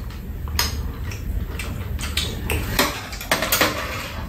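Spoon and chopsticks clinking and scraping against ceramic bowls during a meal, in a scatter of light, irregular clicks.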